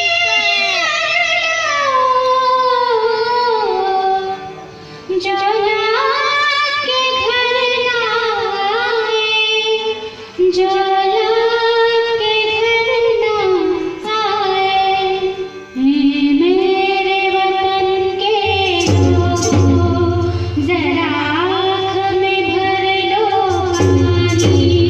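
A girl singing a melodic Indian song alone, in long ornamented phrases that bend and slide in pitch, broken by short pauses for breath. About three-quarters of the way through, a steady low accompaniment comes in under her voice.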